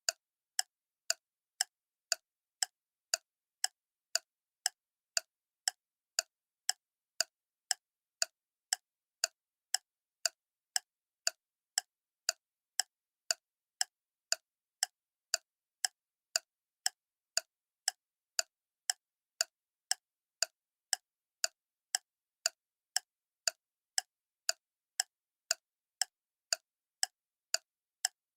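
Clock ticking steadily, sharp even ticks at about two a second with silence between them.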